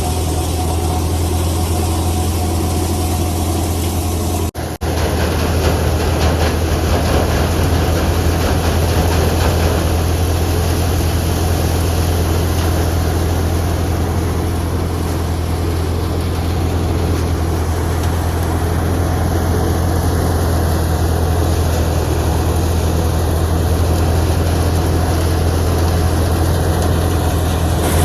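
Sonalika DI 42 RX tractor engine running steadily while it drives a paddy thresher, the engine's low hum mixed with the dense, even noise of the threshing drum. The sound drops out for an instant about four and a half seconds in.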